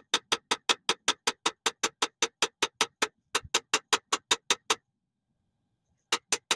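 Rapid, even metallic clicking from a hand tool, about five clicks a second, as a bearing is worked into place in an AMC 360 V8 block. The clicking breaks off briefly about three seconds in, stops near five seconds, and starts again just before the end.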